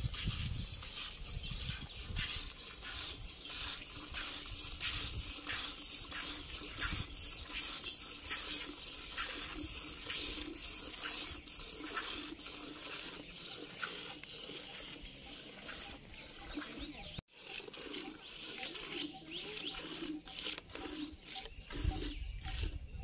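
Milk squirting from a cow's teats into a steel pot during hand milking, in a steady rhythm of about two squirts a second.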